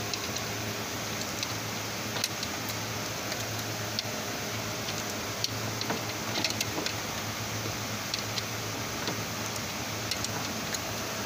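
Scattered light clicks and taps of hands working a drive belt onto the engine pulleys, over a steady low hum and hiss.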